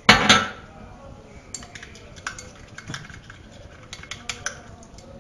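A short loud rustling burst, then light irregular clicks and taps of a stick against a plate as a soap-and-salt slime mixture is stirred.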